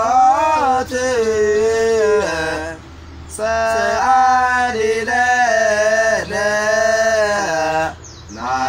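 A man singing unaccompanied in a chanting style, holding long notes that slide up and down, with two short breaks for breath, about three seconds in and near the end.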